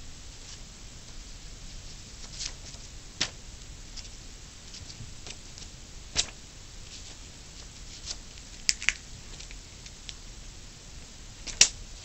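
Scattered sharp clicks and taps from handling small craft parts while making a hole in a homemade toy fan's flywheel: a few single clicks, a quick pair, and the loudest click near the end.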